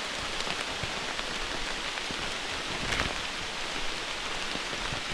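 Steady rain falling, with individual drops ticking here and there and one sharper drop about three seconds in.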